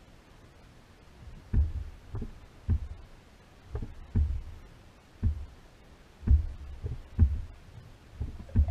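Low, dull thumps, about one a second at uneven intervals, from small waves slapping against the plastic kayak hull.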